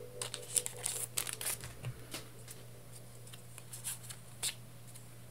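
Trading-card booster pack being opened: the wrapper crinkling and the cards sliding out and being handled, a quick run of faint crackles and rustles that thins out after about two and a half seconds.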